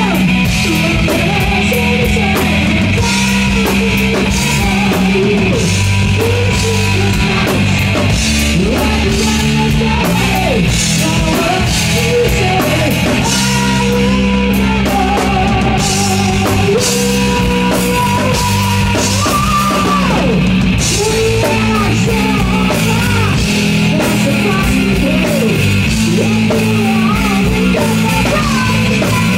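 Live rock band playing loud: drum kit with regular cymbal strikes under electric guitar and bass, with wavering, bending lead lines above.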